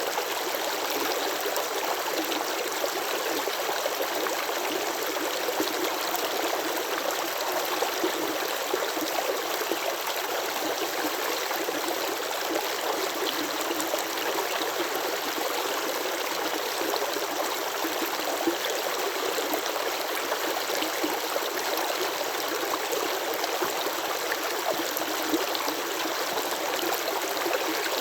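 Flowing stream water babbling and trickling steadily, a continuous rushing hiss with small splashes and no low rumble.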